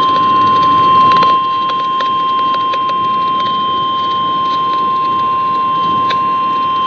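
NOAA Weather Radio's 1050 Hz warning alarm tone: one steady, loud high beep held without a break, the signal that a new warning message follows. It plays over a background of radio hiss with a few faint static clicks.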